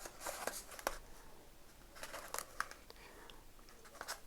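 Faint handling noise of a foam model airplane fuselage: a few light clicks and soft scrapes as it is turned over and inspected.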